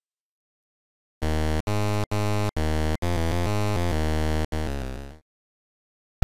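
Chiptune-style synthesizer sound effect: a string of about six buzzy electronic notes starting about a second in, the last one fading out.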